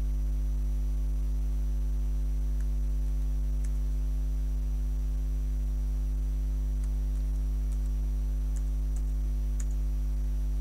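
Steady low electrical mains hum with a stack of overtones, and a handful of faint keyboard key clicks from a password being typed, most of them in the second half.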